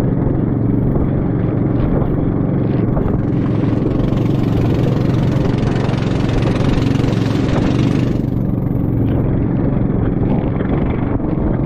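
Small boat's motor running steadily at speed through choppy sea, with water and spray rushing against the hull. A louder rush of spray and wind swells from about three seconds in and cuts off abruptly about eight seconds in.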